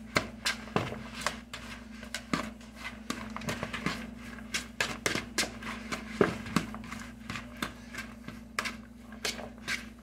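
Metal spoon stirring cooked rice and seasoned ground meat in a bowl, clicking and scraping against the bowl at an irregular pace several times a second. A steady low hum runs underneath.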